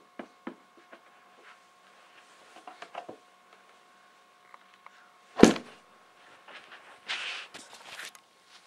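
A snowboard with bindings handled on a carpeted floor: light clicks and knocks, then one loud thud about five and a half seconds in as the board comes down, followed by a short rustle. A faint steady whine sits underneath.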